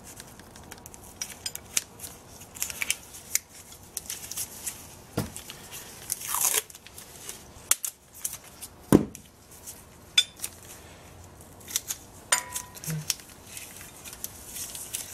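Tape being pulled off a roll and torn, with crinkling and small metal clicks as a flange nut is taped onto the box end of a wrench. A longer tearing sound comes about six and a half seconds in.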